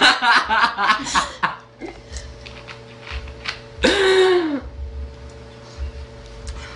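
A person belching after drinking cola: one loud burp about four seconds in, lasting under a second, its pitch rising a little and then falling. Other vocal sounds come in the first second and a half.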